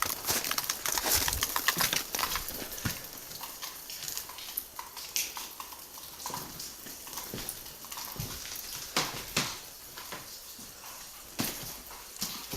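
Footsteps crunching through dry litter and debris: a dense run of crunches at first, then sparser scattered clicks and knocks.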